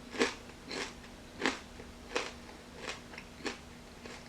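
A person chewing a mouthful of plant-based chicken wing close to the microphone, about six chews at an even pace of roughly one every two-thirds of a second.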